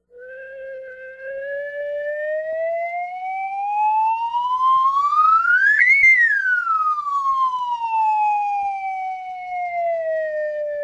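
A single whistle-like tone with overtones glides slowly up in pitch, reaching its highest and loudest about halfway through, then glides back down just as slowly.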